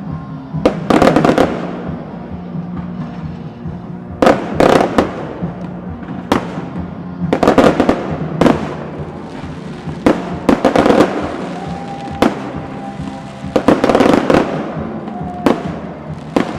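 Fireworks bursting overhead: about a dozen loud bangs, some single and some in quick clusters, every one to two seconds. Music plays steadily underneath.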